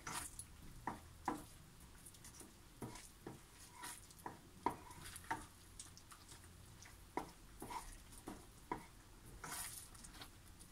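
A spoon stirring thick spinach risotto in a pot, with faint, irregular knocks and scrapes of the spoon against the pan as the parmesan is worked in at the end of cooking.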